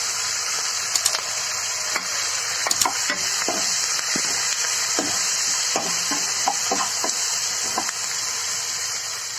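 Curry leaves, chopped garlic and green chillies sizzling steadily in hot oil in a non-stick kadai. A steel ladle stirring them scrapes and taps the pan from time to time.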